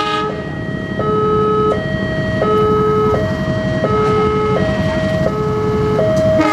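Level-crossing warning alarm sounding a steady two-tone electronic signal, low then high, each tone about 0.7 s long, over the rumble of an approaching diesel locomotive. Short horn blasts from the locomotive come right at the start and again at the very end.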